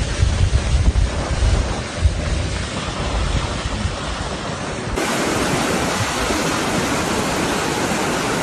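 Fast-flowing floodwater rushing, with wind buffeting the microphone in heavy gusts. About five seconds in it cuts to a steadier, even rush of torrent water.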